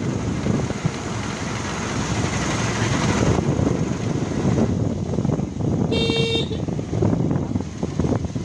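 Steady rumbling road and wind noise, with a short vehicle horn toot about six seconds in.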